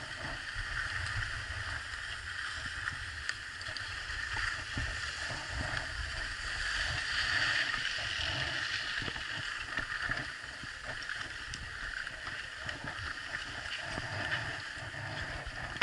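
Skis sliding and scraping over packed snow in a steady hiss, with wind rumbling on the microphone.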